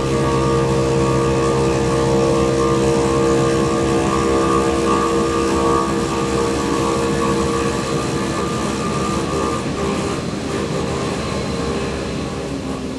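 Omag Blade5 five-axis CNC machine running, its spindle-driven tool milling a stone block: a steady machine hum with several held tones over a hiss of cutting noise. It grows slowly quieter over the last few seconds.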